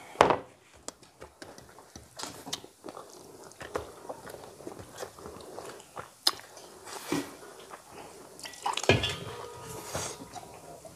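Close-miked eating: wet chewing and small mouth clicks as two people eat food by hand, with the odd tap on a steel plate. Near the end there is a louder stretch of gulping from a glass of water.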